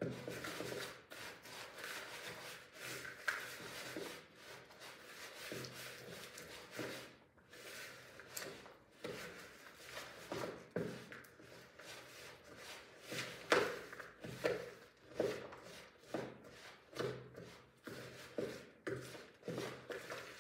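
A spoon stirring a stiff mix of oats, peanuts, M&Ms and raisins coated in melted peanut butter in a plastic mixing bowl: repeated scraping and rattling strokes, which become sharper and more regular, about one to two a second, in the second half.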